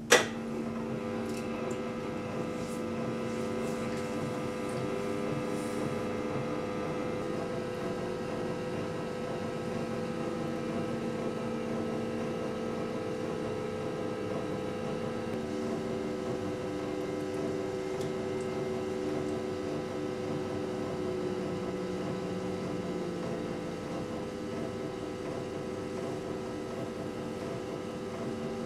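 Electric potter's wheel motor humming steadily as clay is centered and thrown, after a sharp click at the start. A few of its tones shift pitch partway through, as the wheel speed changes.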